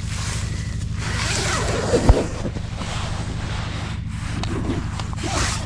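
Nylon tent fabric rustling and rubbing as the mesh door is handled and pulled open, with wind on the microphone. There is a single soft thump about two seconds in.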